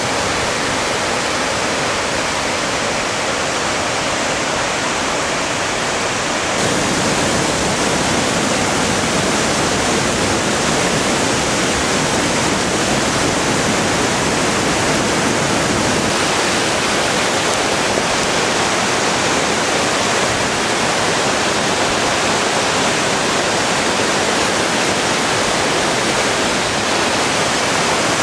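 Mountain waterfall pouring over boulders: a loud, steady rush of falling water, which grows slightly louder about six and a half seconds in.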